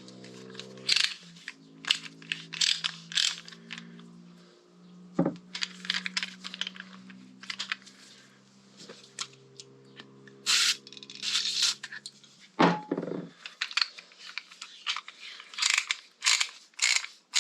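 Metal tools and parts handled on a workbench: a string of irregular clinks, clicks and scrapes, over a faint steady hum that stops near the end.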